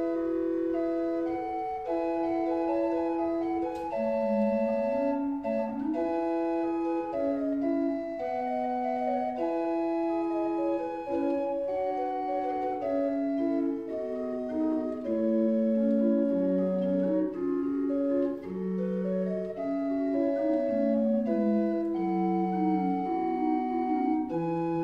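Small 1728 Pedro de Echevarría pipe organ playing Renaissance keyboard variations on a single soft Tapadillo 4' flute stop. Clear, steady flute-like notes weave in several lines at once, with the lowest line moving up and down beneath them.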